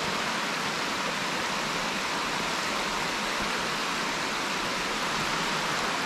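Steady rushing of shallow water running in wide, low cascades over flat bedrock: a broad, gently sloping waterfall.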